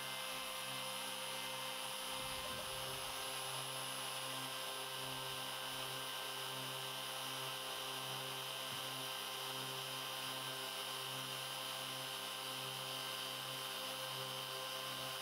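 Homemade CNC router's spindle running at a steady pitch as a 3 mm spiral end mill cuts a groove in wood, 1 mm deep per pass at 200 mm per minute: a light cut that the machine handles without strain.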